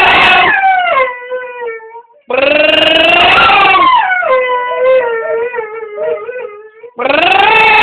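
Pet dog howling: long, wavering howls. One trails off into a lower, quieter whine about half a second in, a second loud howl starts about two seconds in and sinks into quieter wavering calls, and a third begins near the end.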